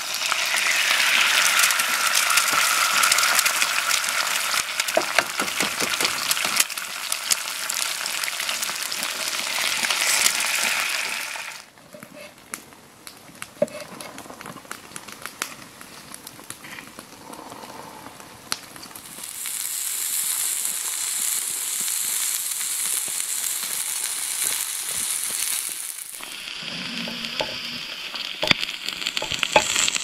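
Eggs frying in oil in a pan on a portable gas stove, sizzling and crackling loudly. About a third of the way in the sizzle drops away to a quieter stretch of scattered taps, like a knife on a cutting board. Steady sizzling returns a little past halfway.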